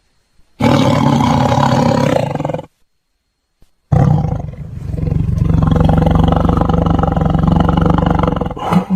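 Tiger roaring twice: a roar of about two seconds, then, after a second of silence, a longer roar of nearly five seconds.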